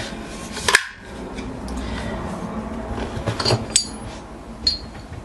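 Metal parts of a field-stripped Kel-Tec Sub-2000 carbine being handled for reassembly. There is a sharp click under a second in, then a few light metallic clinks with a brief ring around three and a half and four and a half seconds in.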